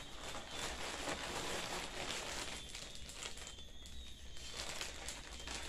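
Plastic packaging crinkling and rustling as a garment's clear plastic bag is pulled open and handled among poly mailers.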